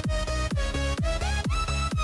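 Electronic dance music with a kick drum about twice a second under synth melody lines, some of which slide in pitch.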